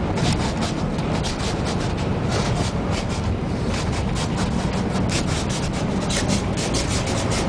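Strong gale-force wind buffeting and crackling on the microphone in rapid irregular gusts, over a steady low rumble.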